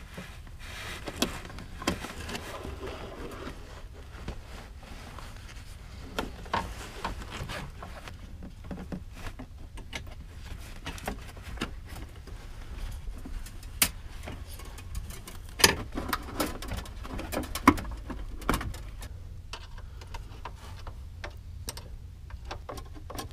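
Scattered small clicks, taps and rubbing as a copper brake line is fed along under a car and its fitting is threaded into the rear brake connection. A few sharper metal clicks come about two-thirds of the way in, over a steady low rumble.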